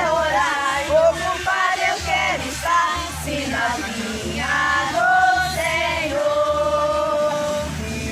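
A song: voices singing a melody with long held notes over a steady bass accompaniment.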